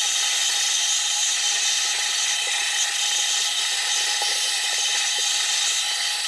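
Vacuum cleaner running steadily with a high whine, its nozzle sucking dust out of a netbook's bottom case.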